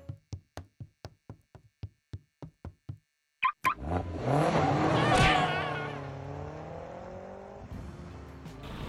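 Sound effects: quick, evenly spaced footstep clicks, about four a second, then a double chirp from a car's key fob, then a car engine starting, revving up and settling back to idle.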